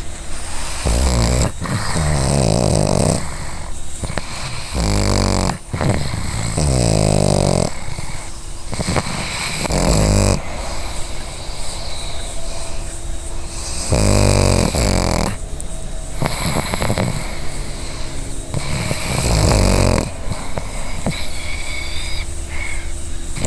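Pug snoring in its sleep, with rasping breaths repeating irregularly every two to three seconds.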